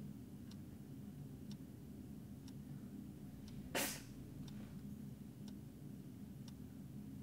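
Clock ticking faintly and evenly, about once a second, over a steady low room hum, with one brief burst of noise about four seconds in.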